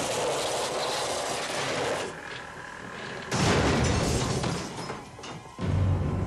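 Car crash sound effects: a long stretch of crashing noise, then a heavy boom a little over three seconds in that fades away.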